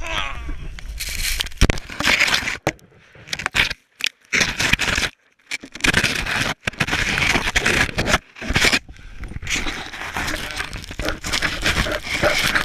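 Snow scraping and crackling against the housing of a GoPro Hero 3+ action camera, in uneven bursts broken by several short near-silent gaps.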